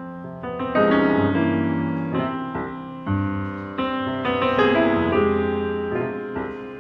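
Piano playing: notes and chords struck about once a second, each ringing on and fading before the next.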